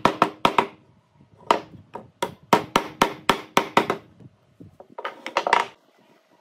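Hammering on wood: quick, sharp strikes in three bursts, about fifteen in all, each with a short ring.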